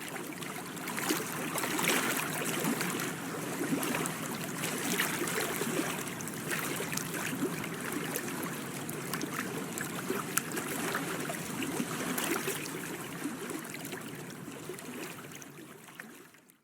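Water splashing and trickling: a steady rush dotted with many small splashes, fading out near the end.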